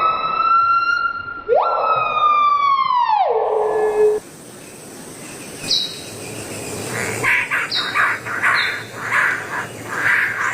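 A bird calling: two long, loud wailing calls that slide down in pitch, then a series of shorter, quieter chirps.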